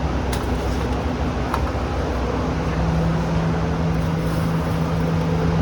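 Steady mechanical rumble of commercial kitchen equipment, with a steady hum joining a little over two seconds in and a few light clicks.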